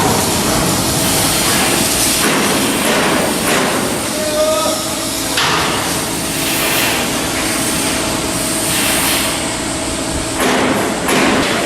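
Steel hull-block work in a shipyard: a continuous din of metalwork with hammer-like knocks on steel.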